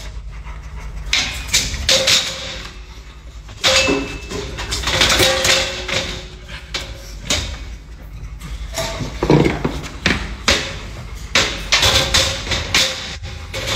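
Plastic slatted floor boards being handled and set against a stainless-steel dog cage and a tiled floor: repeated irregular knocks, thumps and clatters.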